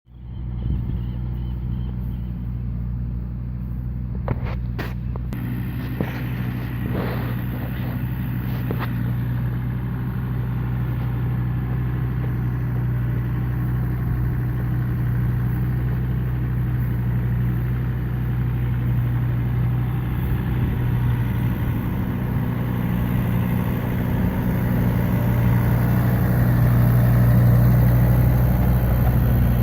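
An engine running steadily at constant speed with a low hum, with a few brief knocks between about four and nine seconds in.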